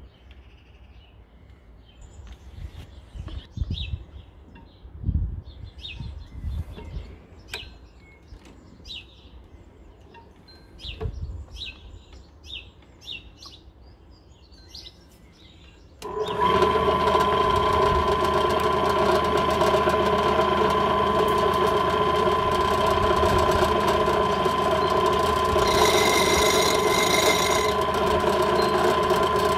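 Scattered light clicks and knocks from handling the bottle in the tub of water. About halfway through, a drill press motor starts suddenly and runs with a steady hum. Near the end, a higher whine joins it briefly as the bit is lowered onto the glass bottle under water.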